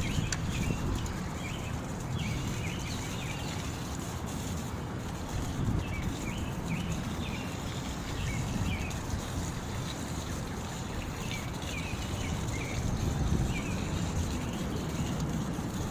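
Small birds chirping in short, repeated notes throughout, over a steady low rumble of outdoor noise.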